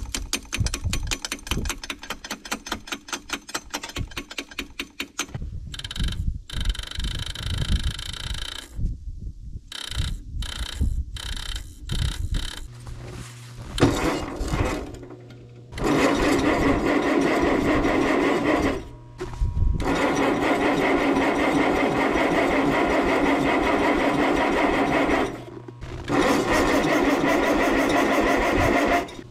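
Starter on a 1957 Allis-Chalmers IB tractor being tried: a rapid clicking, about five a second, for the first several seconds. From about halfway through come three long bursts of loud, steady starter noise with short breaks between. The owner puts the trouble down to a bad starter solenoid.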